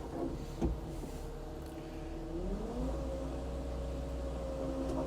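Caterpillar 299D3 skid steer's diesel engine running, with a clank about half a second in; a little past two seconds the engine revs up and holds at the higher speed.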